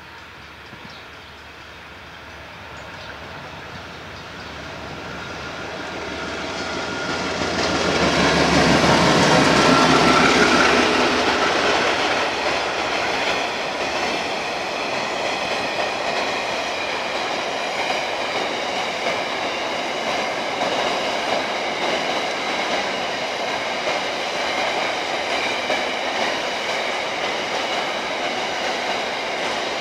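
A coal train approaching and passing close by: its locomotive builds to the loudest point about ten seconds in. Then a long line of loaded coal wagons rolls past with steady wheel-on-rail clatter and thin, high ringing tones from the wheels.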